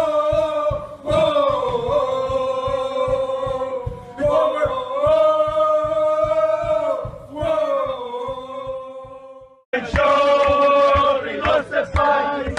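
Football stadium crowd singing a chant in unison, in long held phrases over an even, quick beat of low thumps. Near the end it drops out briefly and cuts to a different, denser crowd chant.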